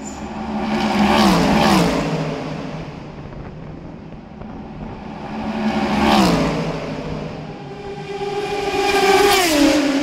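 Three race cars passing at speed, one about a second in, one about six seconds in and one near the end, each engine note dropping in pitch as the car goes by. The middle one is an Aston Martin Vantage GTE with its V8.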